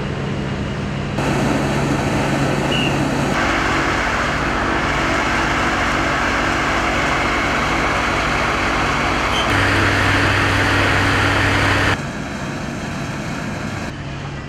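Fire engine's engine running steadily to drive its water pump feeding the hoses: a steady drone under a noisy rush. Its level and tone shift abruptly a few times.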